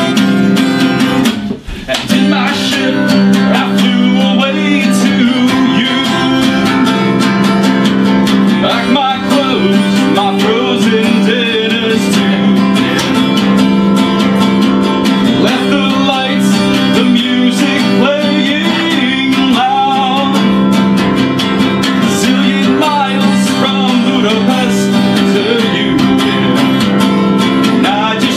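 Live music with a strummed guitar, playing steadily apart from a brief break about two seconds in.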